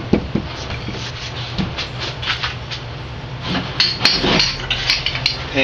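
Hand tools, a saw and hammers among them, being handled and set down: scattered irregular knocks and clinks.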